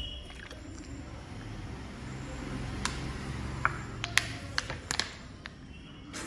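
Low steady room hum with a handful of light clicks and taps, starting about three seconds in and coming again near the end.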